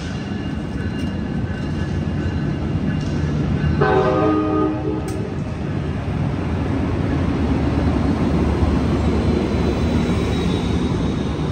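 Amtrak Capitol Corridor push-pull train departing, its Siemens SC-44 Charger diesel locomotive passing close by with a steady low rumble of engine and wheels that grows louder as it goes past. A train horn sounds once, briefly, about four seconds in.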